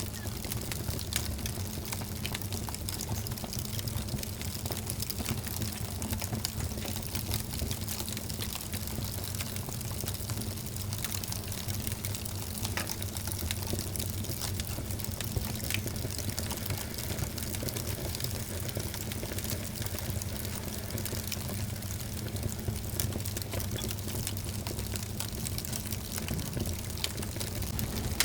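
Wood fire burning in a fireplace: a steady low rush with frequent small crackles and pops.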